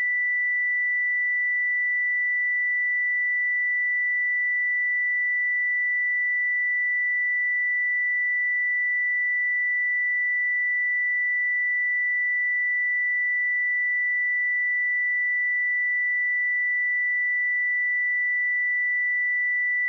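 A pure 1973 Hz sine-wave test tone, held steady at one pitch and level, as used to check speakers and headphones.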